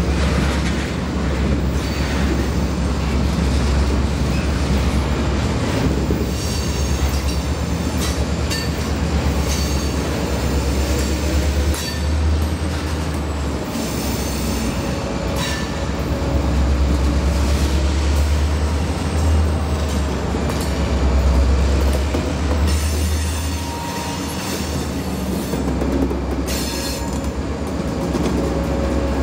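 Diesel-hauled freight train moving past, with a steady low rumble and wheels squealing at times in high thin tones.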